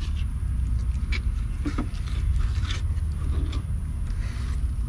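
Steady low rumble of wind on the microphone, with a few faint scrapes and taps of a fillet knife and catfish fillet on a plastic cutting board.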